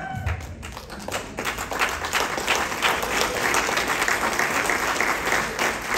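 Audience applauding, swelling over the first couple of seconds and then going on steadily.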